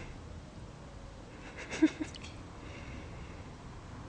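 A short two-part cry about halfway through: one sharp call, then a weaker echo of it a moment later.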